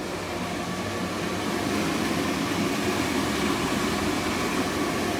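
Twin-fan ceiling exhaust vent fan running steadily: a rush of moving air with a low hum, growing a little louder over the first two seconds.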